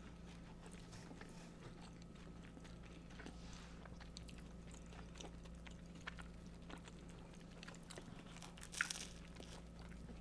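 Close chewing and biting of a sloppy joe sandwich on a toasted bun: faint wet mouth sounds and small crunches, with one louder crunch about nine seconds in. A steady low electrical hum runs underneath.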